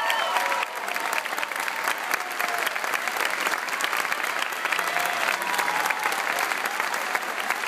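Concert audience applauding steadily, with a few voices calling out over the clapping.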